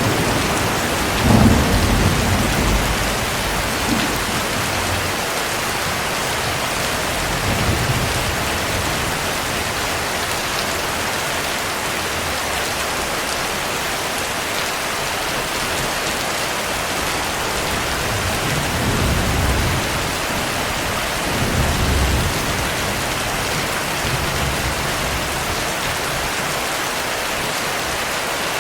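Steady heavy rain with low rolls of thunder rumbling underneath, the loudest about a second and a half in, another near the middle and two more toward the end.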